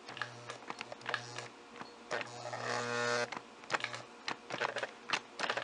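Lionel 2020 turbine toy locomotive's worm-drive electric motor humming in several short starts and stops with a whine about two seconds in, amid irregular clicks and gear chatter. The engine lurches and sticks instead of running smoothly, which the repairer puts down to the worm drive pushing the drive wheels sideways onto sticky grease.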